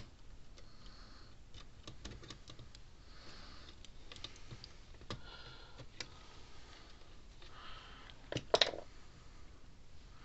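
Scattered small clicks, taps and scrapes of a small screwdriver and wires being worked at a terminal inside a plastic fence-charger case, with a louder rattle of a few clicks about eight and a half seconds in.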